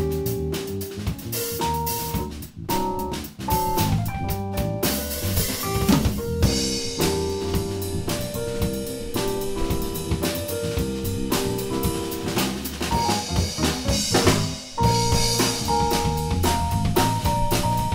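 A live band of keyboard, guitar and drum kit playing an instrumental jazz-funk number, with the drums prominent. There are held keyboard notes over a busy beat, and the playing briefly thins about two and a half, three and fourteen and a half seconds in.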